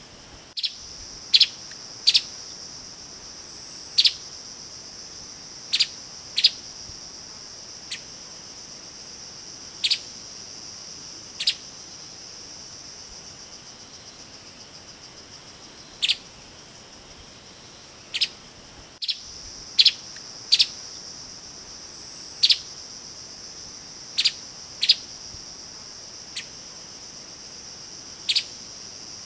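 Streaked spiderhunter giving short, sharp single call notes at irregular intervals, sometimes two in quick succession, with a pause of a few seconds near the middle. Under the calls runs a steady high-pitched insect drone.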